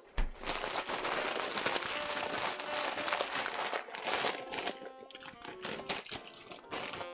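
Plastic bag of frozen peas crinkling and rustling as it is handled and turned over, densest in the first four seconds or so.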